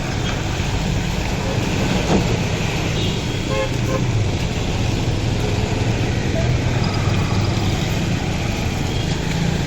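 Steady road traffic noise with engines rumbling, and a car horn tooting briefly a few seconds in.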